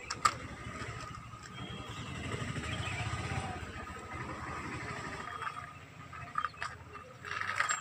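A motor vehicle engine passing by, growing louder and then fading away, with a few sharp clicks of plastic toys being handled.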